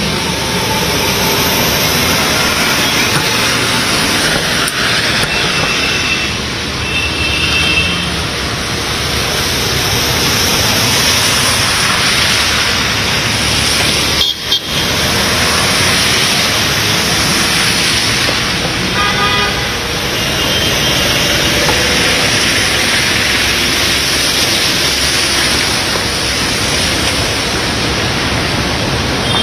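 Street traffic on a flooded road: a steady rush of engine, tyre and water noise, with vehicle horns honking briefly a few times. The sound drops out for a moment about halfway through, where the footage is cut.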